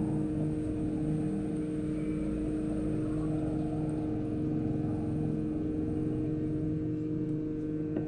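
Steady machine hum with two constant low tones over a low rumble, unchanged throughout.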